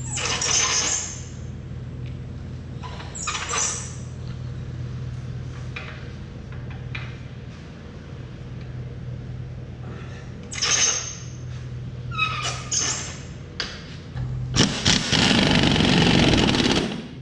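An engine idling steadily, with a few short noisy bursts over it and a loud rushing stretch of about two and a half seconds near the end.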